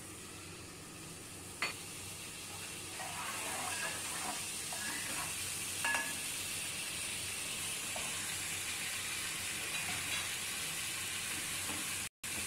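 Whole spices sizzling in hot oil in an aluminium pot, the hiss building after the first couple of seconds. A spatula scrapes and stirs, with two sharp knocks against the pot, one about a second and a half in and one about six seconds in.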